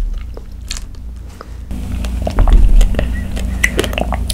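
Close-up mouth sounds of someone chewing chewy cocoa tapioca pearls from bubble tea just sucked up through a wide straw, with many small wet clicks and smacks. A dull low bump about two and a half seconds in is the loudest sound.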